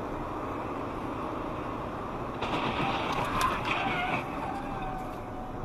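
Steady road and engine noise of a car driving on a highway, heard from inside through a dashcam. About two and a half seconds in it grows louder, with a faint wavering, slowly falling whine on top.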